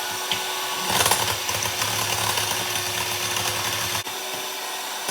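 Electric mixer running steadily, beating two eggs in a bowl until foamy; it gets louder about a second in.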